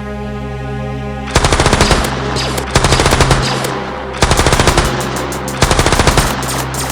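Machine-gun fire sound effect: four bursts of rapid automatic fire about a second and a half apart, over a steady droning music bed.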